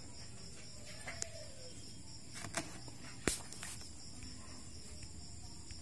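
Quiet steady background hiss with a few faint clicks, the sharpest about three seconds in.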